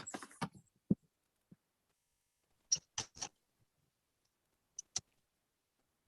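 A few short, scattered clicks and knocks: a cluster right at the start, three quick ones about three seconds in, and two more near five seconds.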